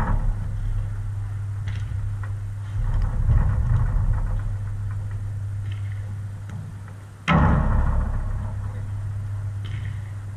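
Five-a-side football in play: the ball is kicked and knocked about over a steady low hum. The loudest sound is a sudden bang about seven seconds in that rings on for a second or two.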